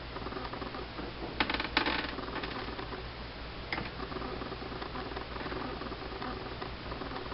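Small hard plastic clicks and clatter as an Xbox 360 wireless controller's buttons are pulled out of the opened shell and set down: a quick cluster of clicks about a second and a half in, a single click near four seconds, and fainter ticks after, over a steady low hum.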